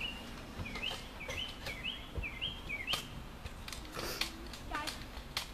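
A bird chirping over and over in short rising calls, two or three a second, stopping about three seconds in, with a few sharp clicks scattered through.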